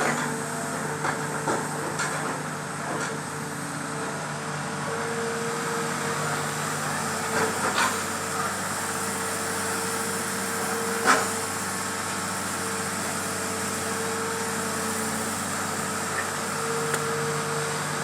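Hitachi excavator's diesel engine running steadily, with a few sharp metallic knocks from the working machine, the loudest about eleven seconds in.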